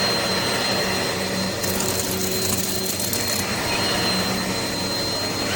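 Vacuum cleaner running steadily, its motor giving a constant rush of air with a thin high whine over it.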